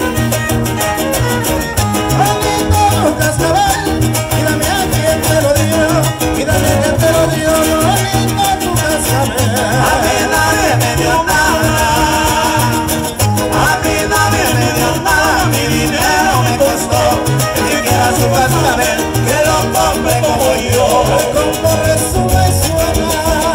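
Son huasteco played live by a trio: a violin carries a wavering melody over steady rhythmic strumming from a jarana huasteca and a huapanguera.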